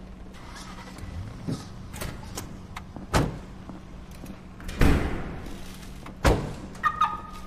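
A car door shutting with a heavy thud about five seconds in, among a few lighter knocks, echoing in an underground car park. A steady low hum runs underneath, and a short high tone sounds near the end.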